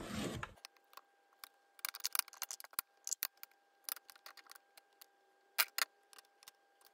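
Plastic makeup compacts, pots and tubes clicking and tapping as they are handled and set down on a wooden tabletop: a scattering of light knocks, the loudest two close together a little over halfway through.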